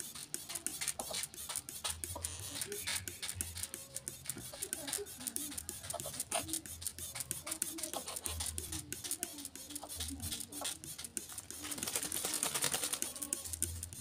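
Light patter and small splashes of water as a wet greater coucal bathes in a shallow puddle, many short ticks in quick succession, with faint music and voices in the background.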